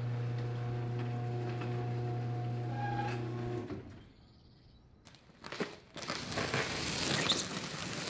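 Electric garage door opener running with a steady motor hum as the overhead door rises, cutting off about three and a half seconds in. After a short lull, a large cardboard box scrapes and rasps as it is slid across an asphalt driveway.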